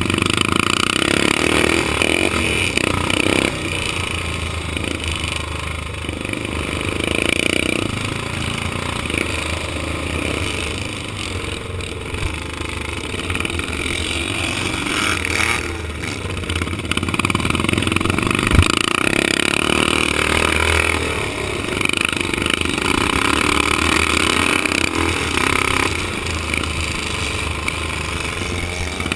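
Vintage motocross motorcycle engine at racing speed, heard from on board, the throttle opening and closing so the sound swells and drops every few seconds.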